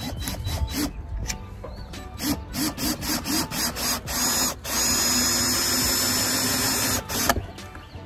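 Cordless drill driving screws into wood: several short pulls of the trigger, then one steady run of about two and a half seconds with a high whine from just past the middle, stopping near the end.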